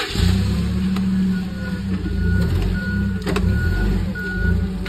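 Forklift engine running loud and steady, with its backup alarm beeping evenly, a little under two beeps a second, from about a second in as the forklift reverses. A single sharp knock a little past the middle.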